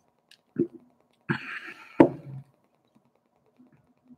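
A man drinking from a glass, with a short noisy breath, then one sharp knock about two seconds in as the glass is set down on a hard surface.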